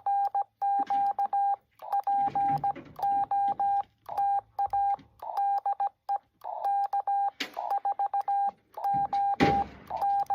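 Morse code (CW) from an amateur radio: a single steady mid-pitched tone keyed in quick dots and dashes, sent in groups with short gaps between. Two brief bursts of noise cut across it, the louder one about nine seconds in.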